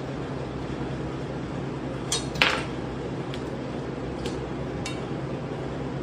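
Steady hum of kitchen ventilation, with a handful of short sharp clicks and clinks from a knife knocking against the cutting board, the loudest about two and a half seconds in.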